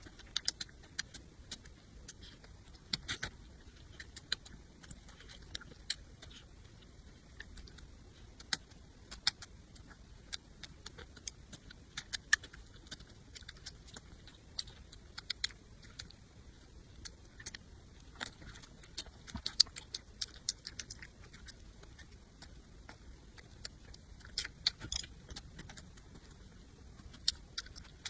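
Close-miked eating: irregular sharp clicks and crunches of food being bitten and chewed.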